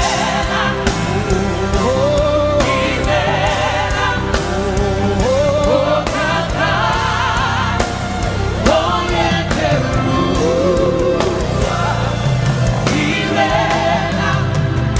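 Live gospel worship music: a lead voice singing with wavering vibrato over a band's sustained chords and a steady drum beat, with a choir singing along.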